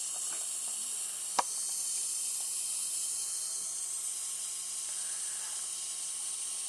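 MFJ-4275MV 75-amp switching power supply sizzling steadily from inside, a high hiss like eggs frying, which the owner puts down to a bad filter capacitor. A single sharp click about a second and a half in.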